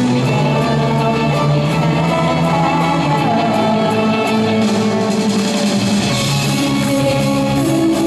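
Live pop song played by an electric string band: electric violin and keytar over a backing beat, with a woman singing.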